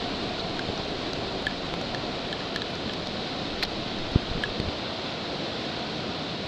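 A brook in flood, a torrent of muddy floodwater rushing steadily, with a short low knock about four seconds in.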